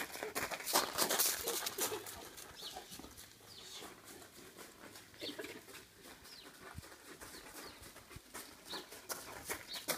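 Footsteps of a person and a large dog crunching over gravel, loudest a second or two in, with a few short high chirps scattered through.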